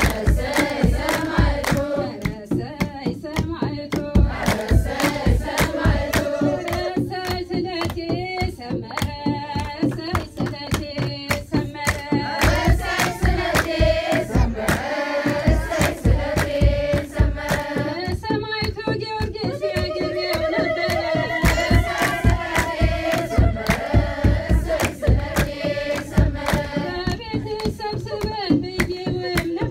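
Group of women, with some men, singing an Ethiopian Orthodox mezmur (hymn) together, with fast, steady hand clapping and a low drum beat keeping the rhythm.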